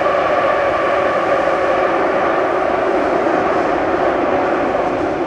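A metro train running, heard from inside the carriage: steady, loud running noise with a droning hum, easing slightly near the end.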